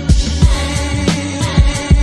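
Hip hop music with a steady beat of kick drums and hi-hats.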